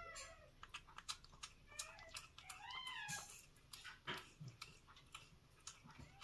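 A cat eating soft canned food from a steel bowl: faint wet chewing and lapping clicks throughout, with two short meows about two and three seconds in.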